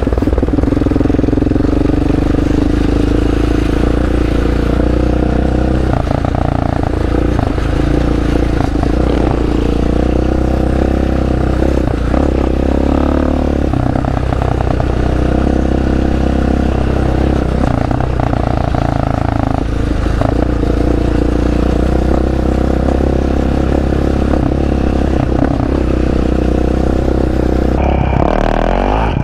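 ATV engine running as the quad is ridden, its note rising and falling with the throttle, with some clatter from the machine over rough ground.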